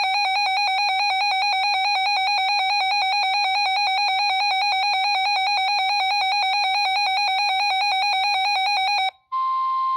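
A weather radio's built-in alert alarm: a loud electronic tone warbling rapidly between two pitches, sounding on receipt of a warning. It cuts off about nine seconds in, and the radio unmutes to the broadcast's hiss and the steady warning attention tone.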